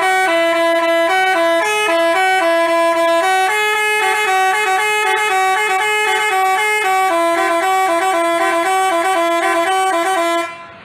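Telolet basuri multi-tone horn playing a tune, several horn notes sounding together and stepping from pitch to pitch, then cutting off abruptly near the end.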